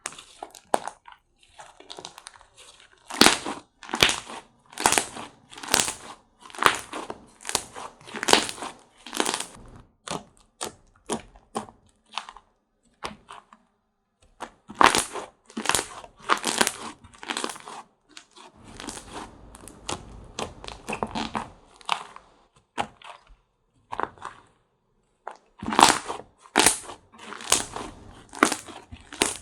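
Slime being squeezed and pressed by hand, giving a run of sharp crackling pops, often about two a second, with a softer squishing stretch in the middle.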